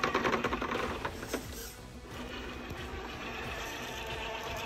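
Electric RC rock crawler's Hobbywing Fusion SE brushless motor and geared drivetrain whining as the truck crawls and turns on rocks. It rattles busily for about the first second, then settles into a steadier whine.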